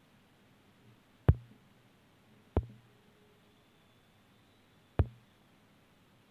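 Three sharp knocks from handling the opened smartphone and its detached back panel, each followed by a brief low thud.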